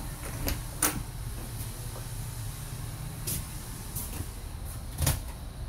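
A few short clicks and knocks as an RV's bathroom door and its frosted sliding shower door are handled, over a steady low hum.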